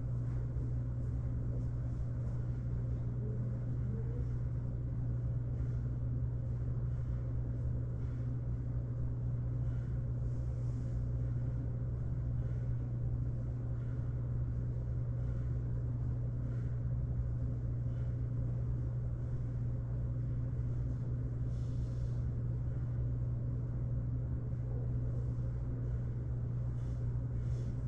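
Steady low mechanical hum of constant pitch over a low rumble, with a few faint ticks.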